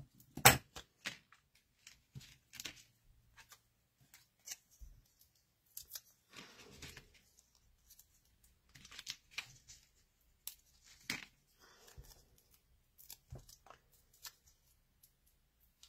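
Scattered small paper-crafting sounds: a few snips and clicks of small craft scissors, then the crackle and rustle of paper offcuts and adhesive backing being peeled and handled, in short irregular bursts.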